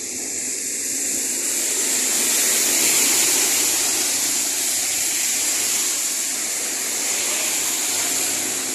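Steady hiss of vehicle tyres on a wet, rain-soaked highway, swelling about three seconds in as a vehicle passes and easing off.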